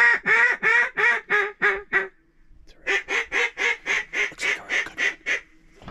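Hen mallard quacks: a series of about eight that fade away, then after a short gap a longer series of about a dozen, loud and close.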